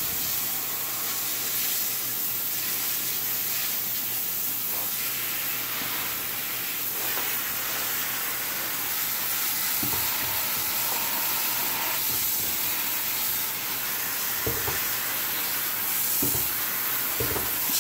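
Hose spray nozzle spraying a steady hissing jet of water onto dry coral rock in a bathtub, rinsing dirt off it.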